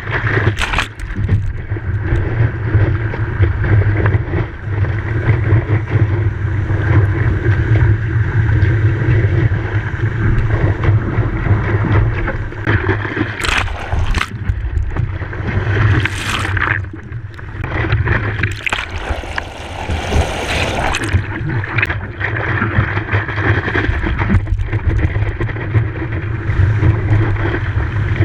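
Wind rumbling on the microphone over ocean surf, with a few louder gusts or splashes now and then.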